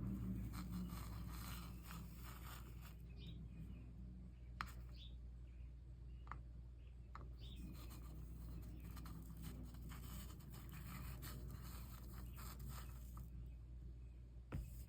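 Quiet scraping and rubbing with scattered small clicks from hand work at a stained-glass soldering bench, over a steady low hum.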